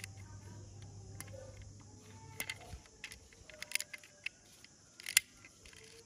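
Toy cars being handled: a scatter of small clicks and taps, the loudest a little past five seconds in. A low steady hum underneath stops a little under three seconds in.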